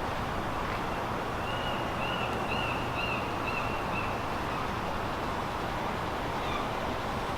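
Steady outdoor background noise like distant traffic, with a run of short high chirps about two to four seconds in.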